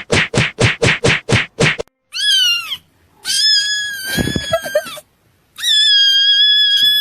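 A quick run of about ten short noisy beats, about five a second, then three drawn-out cat meows, the first falling in pitch and the next two held level.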